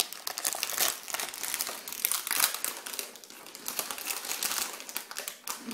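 Packaging crinkling and rustling in irregular crackles as it is handled.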